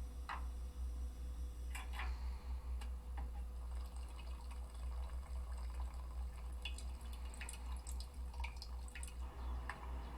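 Sparse small clicks and drip-like taps, spaced irregularly, over a steady low hum.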